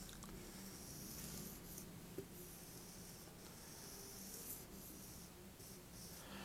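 Marker pen drawing on a whiteboard: a series of faint rubbing strokes, one after another, as short curved lines are sketched.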